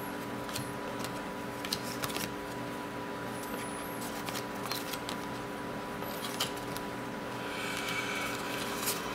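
Basketball trading cards being handled and flipped one by one: scattered light clicks and slides of card stock against card stock, over a steady electrical hum.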